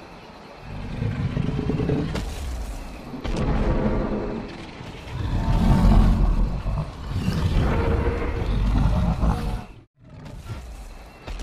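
Deep dinosaur roar sound effects, several swells one after another, with a sudden brief dropout near the end.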